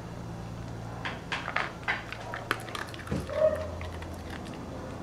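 An animal moving about at a plastic tub: a string of light clicks and knocks, then a short, louder low sound about three seconds in, over a steady low hum.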